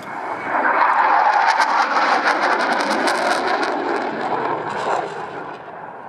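F/A-18 Hornet's twin jet engines passing in a hard banking turn: loud jet noise swells within the first second, crackles through the middle, and falls away near the end.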